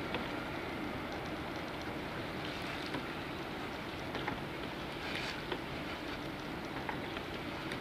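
Large passenger ferry under way: a steady low hum mixed with an even rushing noise, with a few faint ticks.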